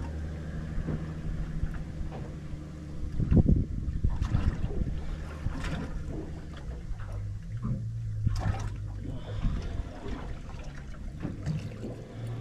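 Low steady hum of the boat's engine idling, its pitch stepping up slightly about seven seconds in, over water washing against the hull. A few sharp knocks cut through, the loudest a thump about three and a half seconds in.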